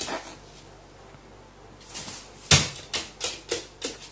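Hard taps on a wooden floor as a pet crow plays catch: one sharp knock about two and a half seconds in, then four quicker clicks within about a second.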